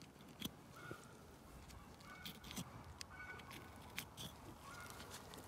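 Quiet cutting of a dead piglet's belly skin with a small blade: a few faint clicks and snips. Short faint animal calls sound several times in the background.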